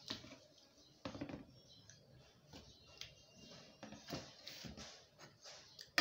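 Scattered faint clicks and scrapes of a brass plate being handled and slid across a tiled tabletop, a small cluster about a second in and more around four seconds in.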